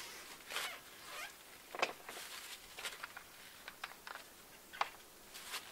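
Handling sounds of cleaning wet epoxy off a boat hull with a wooden scraper, paper towels and alcohol: a few short swishes and sharp clicks.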